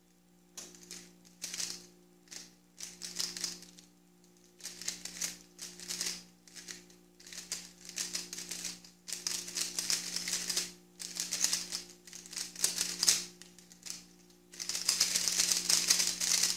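Guoguan Yuexiao 3x3 speedcube being turned at speed in a timed solve: quick runs of rattling plastic clicks from the layers turning, broken by short pauses. The longest and loudest run comes near the end and stops sharply as the solve finishes.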